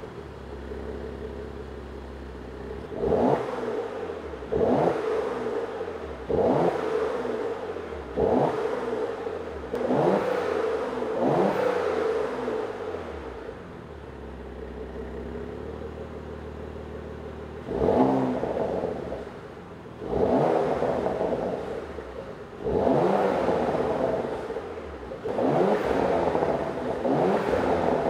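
Porsche Macan S's 3.0-litre twin-turbo V6 through its factory exhaust, revved from idle in short throttle blips, each rising sharply and falling back. About six blips come in quick succession, then several seconds of steady idle, then about five more, some held a little longer.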